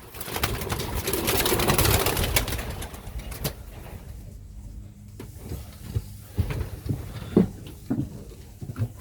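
Domestic pigeons: a burst of rustling and wing flapping for the first three seconds or so, then a few short, low coos.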